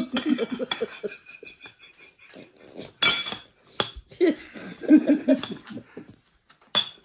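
Spoons and forks clinking against china plates at a meal table: a few sharp ringing clinks, the clearest about three seconds in and another near the end, amid bursts of laughter.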